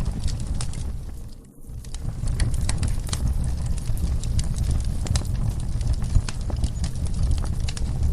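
Wood fire burning in a fireplace: a steady low rumble of flames with irregular sharp crackles and pops. The sound briefly drops away and returns about a second and a half in.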